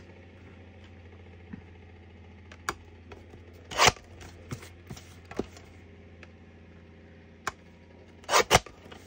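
Small handling noises from card-making: a few sharp clicks and short scraping rustles of card and paper, the loudest about four seconds in and again near the end, over a steady low hum.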